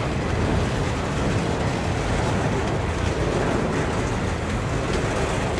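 Freight train of autorack cars rolling past, the steel wheels on the rails making a steady noise.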